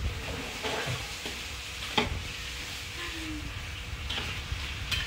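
Pork and banana-stem pieces sizzling in a hot wok while a metal spatula stirs them, with sharp clinks of the spatula against the wok, the loudest about two seconds in.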